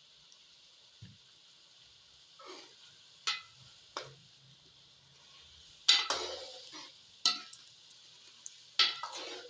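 A cooking spoon scraping and knocking against a pot as a chicken, tomato and pea mixture is stir-fried, over a faint steady sizzle. There are about five scrapes; the loudest comes about six seconds in.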